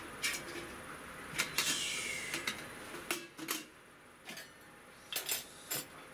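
Stainless steel CANWAY wood stove and an aluminium cook pot being handled and taken apart: scattered light metal clinks and knocks, with a short metallic scrape about two seconds in.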